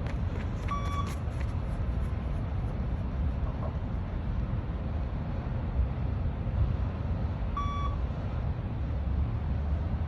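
Two short electronic beeps from a shuttle-run beep test recording, about seven seconds apart, each signalling the next shuttle, over a steady low rumble.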